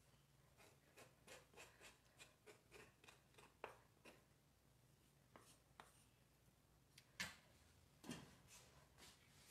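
Near silence broken by faint light clicks and taps of kitchen utensils being handled: a metal mesh sieve and a wooden spoon against an aluminium pot. Two slightly louder knocks come about seven and eight seconds in, as the sieve is set back on the pot rim.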